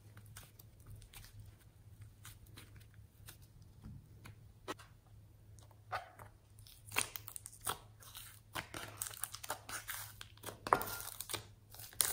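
Sticky slime being kneaded and then peeled out of a tray by hand: a run of small wet crackles and pops, sparse at first and growing denser and louder in the second half.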